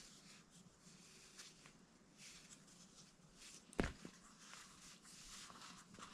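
Faint rustling of a sandal lace being handled and tied, with one sharp knock about four seconds in.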